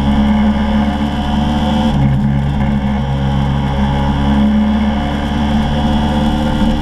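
Motor scooter engine running at a steady pitch under load on a climb, with wind and road noise over the microphone.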